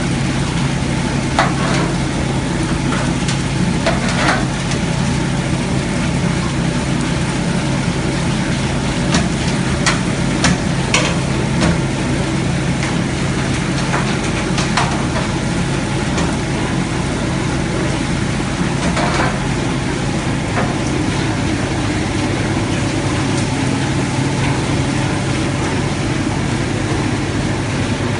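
Grape destemmer-crusher running steadily with a constant low hum while bunches are fed in and stems are thrown out, with a few short knocks and clatters along the way.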